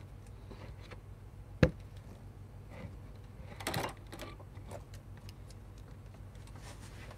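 Laptop case and circuit board being handled and fitted together on a desk: scattered light plastic clicks and taps, one sharp click just under two seconds in and a short clatter around the middle, over a low steady hum.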